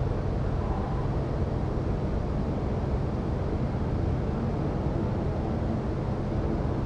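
Steady low rumbling noise with a hiss above it, unbroken and without distinct events.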